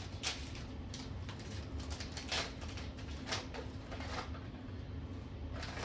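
Gift wrapping paper rustling and tearing in short, crackly bursts as a present is unwrapped.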